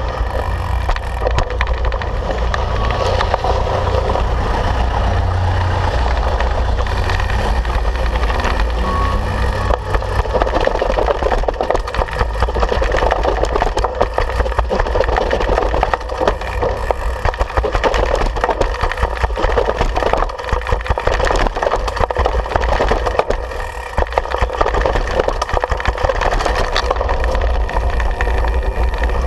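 Mountain bike rattling and clattering as it is ridden down stone steps and over cobblestones, heard through a handlebar-mounted camera: a dense, continuous run of knocks and rattles from the bike over the bumps, with a low rumble underneath.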